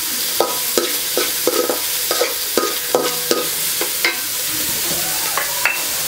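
Metal spatula scraping and tossing chopped onions in an aluminium kadai, about two to three strokes a second, over the steady sizzle of the onions sautéing in hot oil. The scraping stops about four seconds in, leaving the sizzle.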